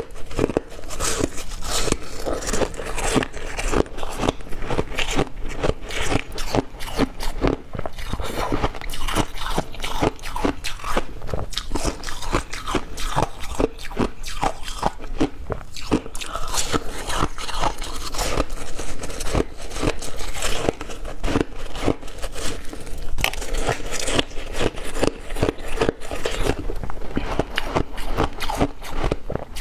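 Close-miked biting and chewing of a block of frozen ice: dense, crisp crunching, with many cracks in quick succession.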